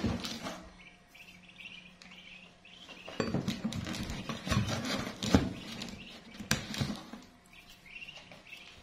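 Newly hatched ducklings peeping in short repeated calls, with a stretch of knocks, rustles and clinks from things being handled in a cardboard brooder box from about three seconds in until about seven seconds; the sharpest click comes a little past five seconds.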